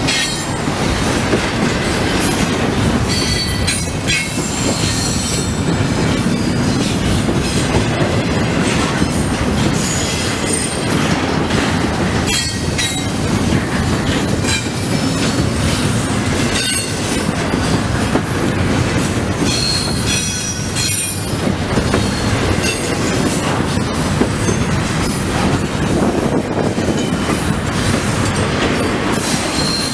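Double-stack intermodal freight cars rolling past close by: a steady, loud rumble of steel wheels on rail, with short high-pitched wheel squeals coming and going and scattered knocks of wheels over the rail.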